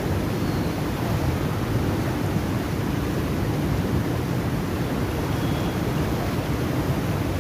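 Water rushing out through a dam's sluice gates and churning in the spillway channel: a steady, deep rush with no breaks.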